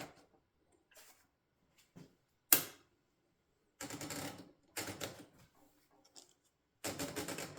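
Mercedes model 8 typewriter being typed on: a few light clicks and one sharp loud stroke, then three short bursts of rapid keystrokes. This enclosed model was built as a quieter-running machine than the standard Mercedes.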